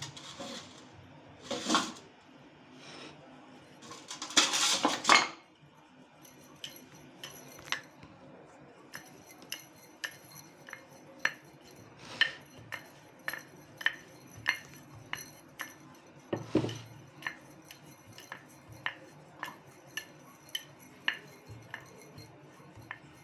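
Wooden rolling pin rolling out pizza dough on a floured board: a couple of louder rubbing noises in the first few seconds, then light, sharp clicks and knocks about twice a second as the pin goes back and forth.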